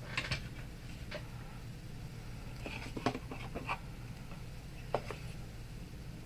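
Scattered light clicks and taps from craft pieces and tools being handled on a work table: a few near the start, a cluster about three seconds in, and one more about five seconds in, over a steady low hum.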